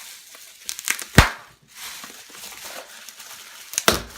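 Packaging crinkling and rustling as a postal bag is opened and a small box is taken out, with a sharp knock about a second in and another near the end; the first is the loudest sound.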